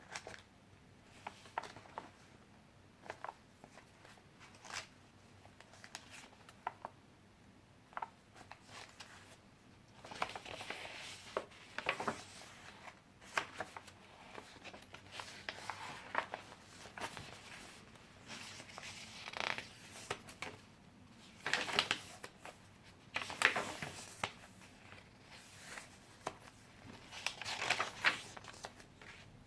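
Pages of handmade paper-and-fabric junk journals being turned and handled: small papery rustles and light clicks throughout, with louder swishing page turns every few seconds.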